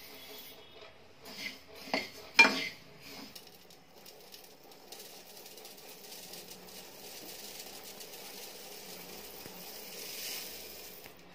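A metal ladle stirring dry coriander seeds in a pan, with a few sharp clanks against the pan in the first seconds, the loudest about two and a half seconds in. Then a steady faint rustling hiss, swelling near the end as dry coriander seeds are poured into a steel pot.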